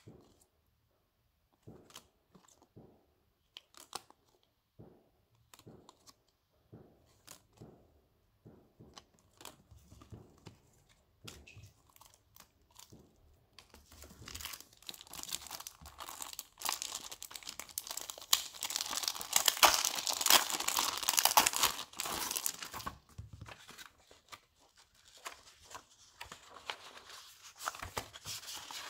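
Light scattered clicks and taps of photocards being handled, then, about halfway through, a long loud crinkling and tearing of plastic shrink wrap being pulled off a photo book, easing off a few seconds before the end.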